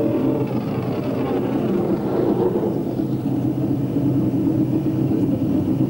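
Racing car engines running, a steady mechanical rumble with some shifting pitch in the first couple of seconds.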